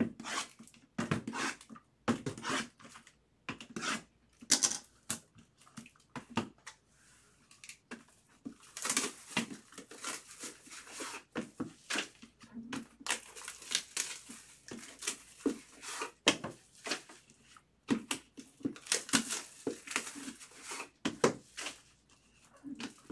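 Cardboard trading-card hobby boxes being handled and moved about on a table: irregular knocks, scrapes and rustles.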